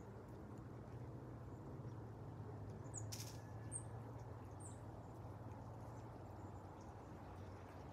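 Faint, steady low rumble of a Boeing 757-232 jet airliner cruising at high altitude, its Pratt & Whitney PW2000-series turbofans heard only as a distant drone. A few faint bird chirps and a short hiss come about three seconds in.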